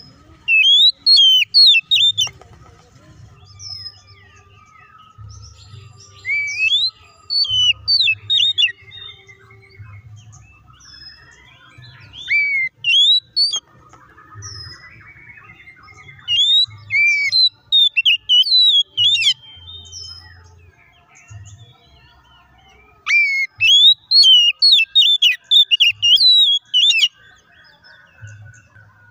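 Oriental magpie-robin singing in loud phrases of rapid, sharp, varied whistled notes, each phrase one to three seconds long with short pauses between, five times over.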